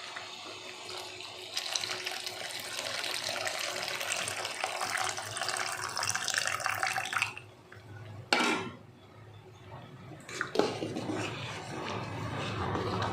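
Coconut milk pouring in a steady stream into the pot of payasa, stopping abruptly about seven seconds in, followed by two sharp clanks of the vessel or ladle against the pot.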